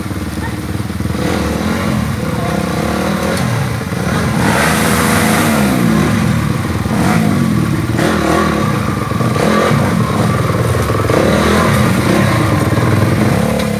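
Dirt bike engine revving up and down repeatedly, its pitch rising and falling over and over, with a short burst of hiss about five seconds in.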